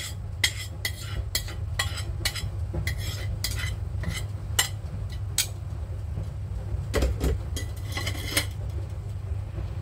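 Metal tongs scraping and clinking against a ceramic bowl as the last of the marinade is scraped out, with sharp clinks about twice a second for the first five seconds and a few more around seven to eight seconds in. A steady low hum runs underneath.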